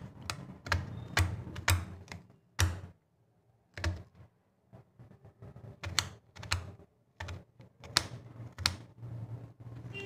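Kitchen knife chopping red onions on a stone countertop: irregular sharp knocks of the blade striking through onto the stone, with a pause of a couple of seconds in the middle.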